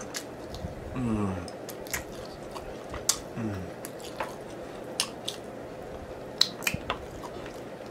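Close-miked mouth sounds of sucking and gnawing meat off a sticky chicken wing bone: scattered wet smacks and clicks, with two short falling 'mm' hums, about a second in and again about three and a half seconds in.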